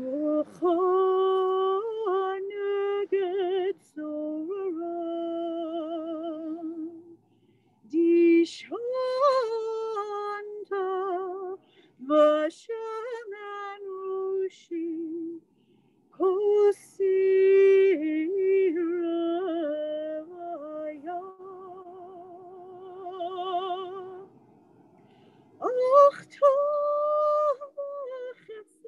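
A woman's solo voice chanting in Hebrew, unaccompanied, in cantorial style. She sings long ornamented phrases with a wide vibrato, pausing briefly between them.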